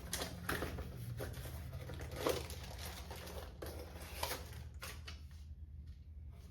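Scattered light clicks and rustles of small objects and packaging being handled, over a steady low room hum; the handling stops about five seconds in.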